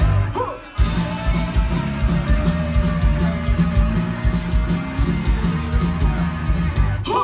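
Live rock band playing loud: electric guitars, bass and drums with a steady driving beat. The band stops short for a moment about half a second in and again near the end, then crashes back in.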